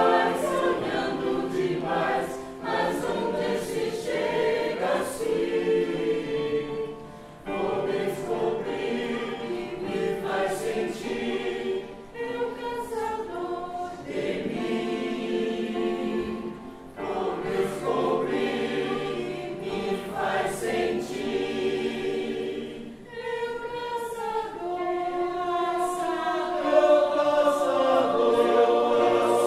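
Mixed choir of men's and women's voices singing together, in phrases broken by short pauses about every five seconds, growing louder near the end.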